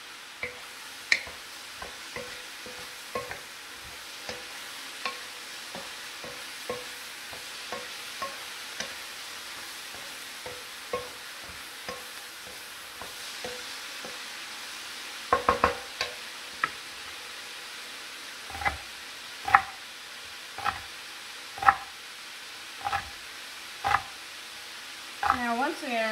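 Chopped vegetables (onion, carrot, mushrooms, edamame) sizzling steadily in a frying pan, with a knife knocking on a cutting board every second or so as green onions are chopped. A quick run of about four chops comes a little past the middle.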